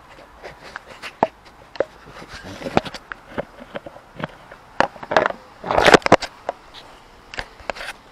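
Handling noise as a multimeter and its test leads are held and moved close to the microphone: scattered clicks and knocks, with a louder rustling burst about six seconds in.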